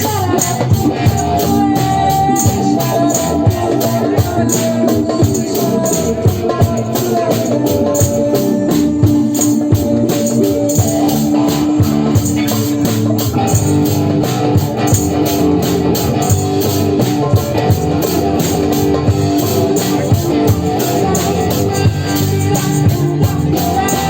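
Psytrance music played live: a steady, fast, shaker-like high percussion pattern over held synth notes, which change pitch about eleven seconds in.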